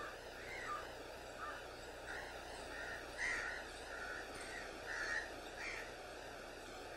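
Crows cawing, about ten short harsh calls at irregular intervals, over a steady tape hiss and low hum.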